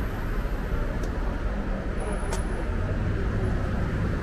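Street traffic: cars passing on the avenue, a steady low rumble of engines and tyres, with a faint click about two seconds in.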